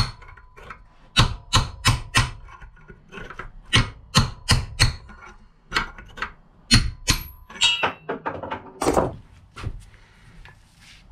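Hammer striking a small chisel against a steel bearing cup seated in a Shimano R500 rear hub's alloy shell: a series of sharp taps in short irregular runs. The cup is being driven out by tapping it in four places around its edge so that it comes out evenly.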